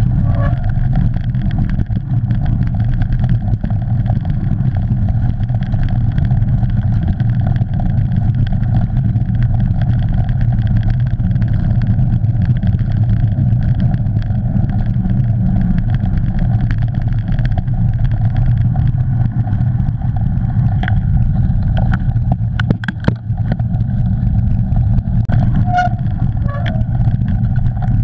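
Steady low rumble of wind and trail vibration on a mountain bike's action camera while riding a dirt forest track at speed, with a few sharp knocks from bumps in the last third.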